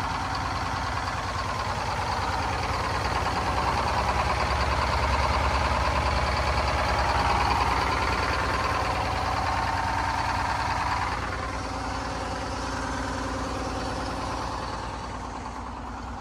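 Engine of an old Mudcat horizontal dredge running steadily after being started, getting somewhat louder for several seconds and easing back a little about eleven seconds in.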